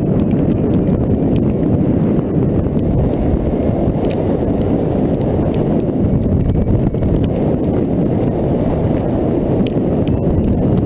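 Steady rush of airflow buffeting the microphone in flight, with small scattered ticks of raindrops striking through a heavy downpour.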